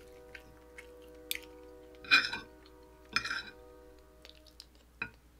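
Chewing, and a spoon and fork clinking and scraping on a ceramic plate, with two louder scrapes about two and three seconds in. Soft background music with steady held notes plays under it and fades out near the end.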